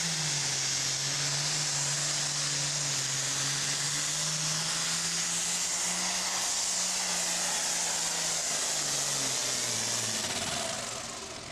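Turbocharged diesel super farm tractor at full power pulling a sled: a steady, loud engine run with a strong rushing hiss on top. Its pitch holds through the pull, then falls away near the end as the run finishes.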